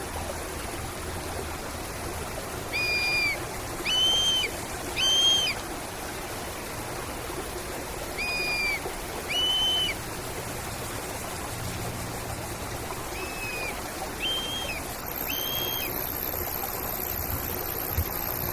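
A bird whistles clear, steady-pitched notes over a stream running steadily. The notes are each about half a second long and come in short phrases of three, then two, then three, with later notes in a phrase pitched higher. Near the end a thin, very high steady tone sets in.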